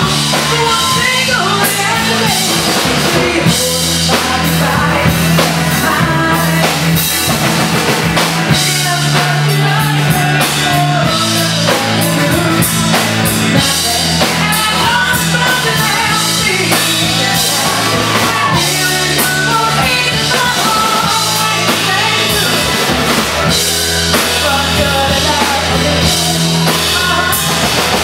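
Live rock band playing loudly: a woman sings into a microphone over a drum kit and electric guitar.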